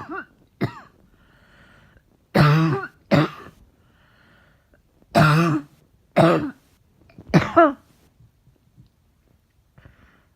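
A woman coughing repeatedly: about seven coughs, mostly in pairs, with voice in them, and breaths drawn in between.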